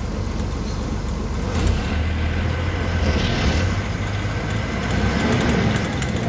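Bus engine running while the bus is driven, heard from inside the passenger cabin as a steady low drone that grows a little louder about a second and a half in.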